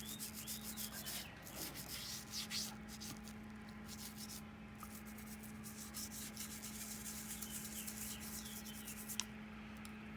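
Soft-bristled bottle brush scrubbing down inside a Victorinox pocket knife's handle in brisk back-and-forth strokes, stopping with a small click near the end.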